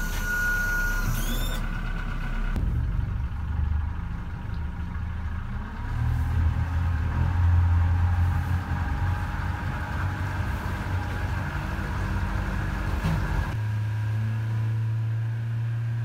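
Yamaha outboard motor running as the boat gets under way, with a short electronic beep in the first second. It grows louder through the middle, then settles into a steadier, even note near the end.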